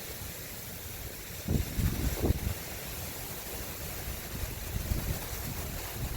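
Strong wind buffeting the microphone: a steady hiss with low rumbling gusts, strongest about a second and a half in and again near the end.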